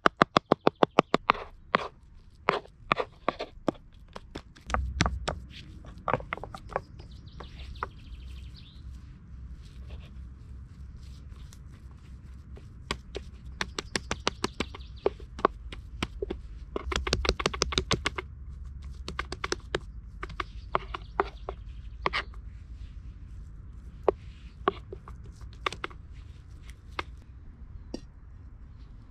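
Knife chopping raw meat into mince on a wooden cutting board: a fast, even run of strokes at the start, then slower, scattered knocks, with another quick run a little past halfway.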